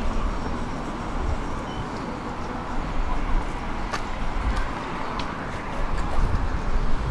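Tram running along the track, heard from inside the passenger car: a steady rumble of wheels and running gear, with a few sharp clicks about halfway through.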